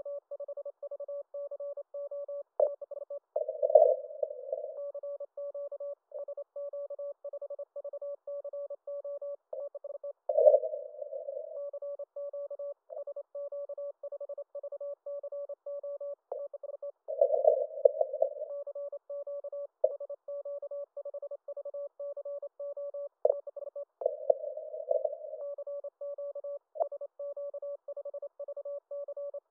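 Morse code (CW) from a Yaesu FT-891 HF transceiver: a single mid-pitched tone keyed on and off in fast dots and dashes, with louder, noisier stretches of signals about every seven seconds.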